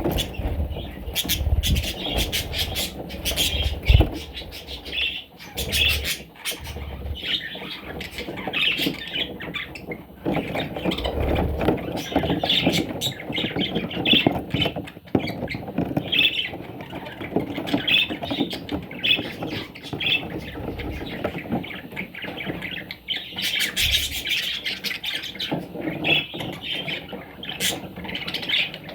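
Pet parrots calling over and over with short squawks and chatter, mixed with scattered sharp clicks and knocks.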